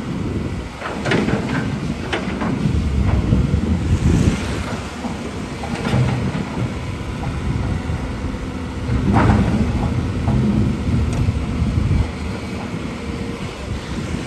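Hydraulic excavator's diesel engine running steadily under load, with a few scrapes and clanks, the strongest about nine seconds in.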